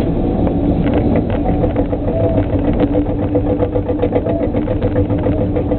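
Volvo EC140 LC excavator's diesel engine running steadily, heard from the cab, with a pulsing whine and light ticking through the middle.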